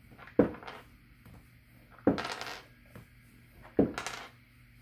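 Three sharp knocks about a second and a half apart, with brief clatter: a small ball bouncing on a hard floor and goat knucklebones being scooped up in a game of jacks.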